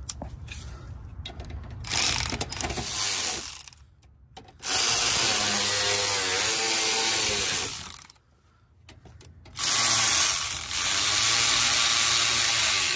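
Cordless electric ratchet running the radiator mounting bolts in: a short burst a couple of seconds in, then two long runs of about three seconds each, its motor pitch wavering as the bolt tightens.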